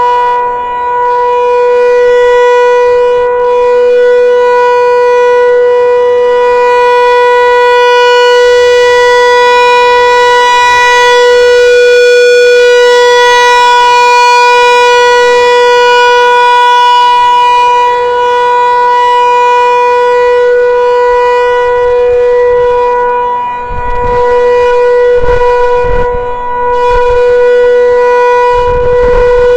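Federal Signal 508 dual-tone rotating outdoor warning siren sounding a steady-pitch chord, the Alert signal of a monthly test, its loudness swelling and dipping as the rotor turns. Low rumbling on the microphone near the end.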